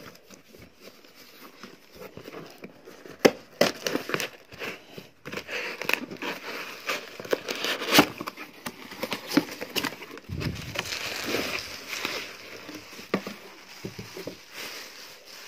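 Cardboard shipping box handled and opened by hand: flaps scraping and rustling, with several sharp snaps of the card. Plastic bubble wrap crinkles near the end as the contents are pulled out.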